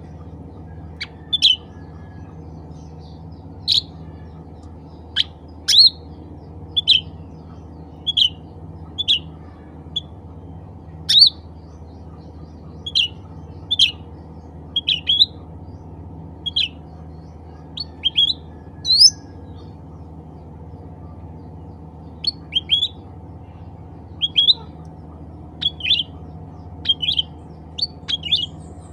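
Cucak ranting calling: short, sharp, separate chirps, about one a second and sometimes in quick pairs, over a steady low background hum.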